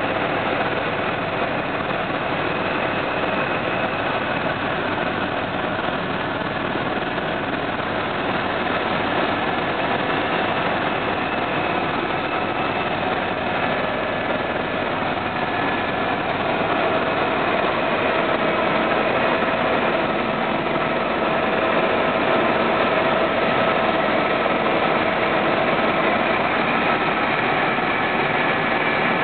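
Tour helicopter's engine and rotor noise: a steady, even din with a few constant whining tones, getting slightly louder about halfway through.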